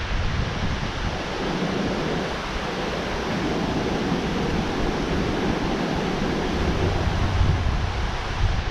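Steady rush of water, likely falling over a dam spillway, with wind buffeting the microphone at the start and again from about seven seconds in.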